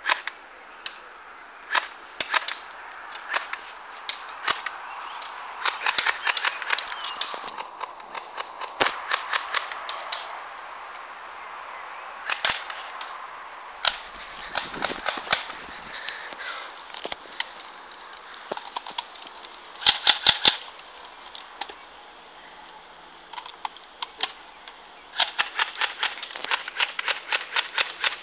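Airsoft guns firing: sharp single shots and rapid strings of shots. The loudest strings come about twenty seconds in and near the end.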